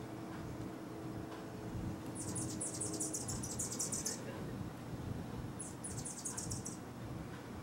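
Anna's hummingbirds chattering: two rapid series of high, scratchy notes, the first starting about two seconds in and lasting about two seconds, the second shorter, about a second and a half later.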